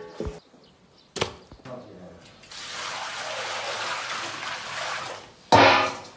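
Water pouring and splashing out of a stainless steel bowl into a basin for about two and a half seconds. Near the end comes a loud, ringing clang of stainless steel.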